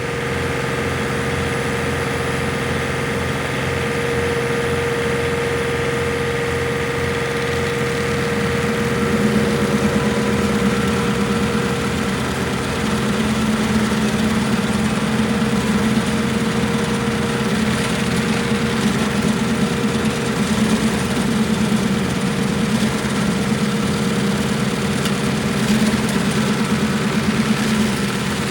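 John Deere 3039R compact tractor's diesel engine running steadily while driving the Woodland Mills WG24 stump grinder. It grows a little louder and rougher about nine seconds in.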